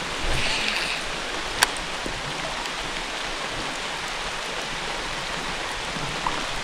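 Steady wash of water noise at the creek, even and unbroken, with a single sharp click about one and a half seconds in.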